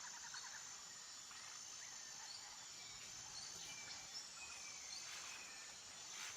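Faint forest ambience: a steady high insect-like drone with a few short bird chirps and a brief falling whistle about four seconds in.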